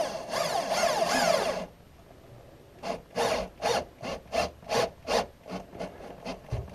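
Cordless drill driving a screw straight into wood without a pilot hole, grinding for about a second and a half, then a run of short rasping strokes, about three a second.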